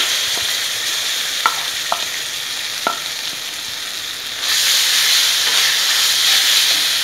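Freshly grated coconut sizzling in hot ghee in a kadhai as it is tipped in and stirred with a wooden spatula, with three light knocks of the spatula. The sizzle gets louder about four and a half seconds in, as the coconut is spread across the pan.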